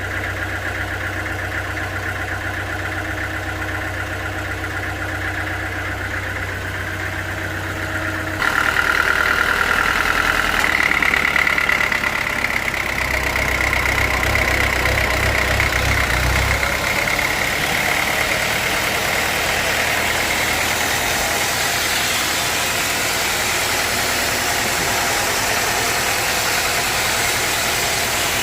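Sawmill engine running steadily, becoming louder and harsher about eight seconds in, with a high whine over it for a few seconds after the change.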